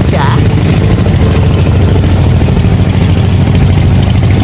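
Engine of a motorized outrigger boat (bangka) running steadily under way, heard from on board: a loud, even low hum that holds without a break.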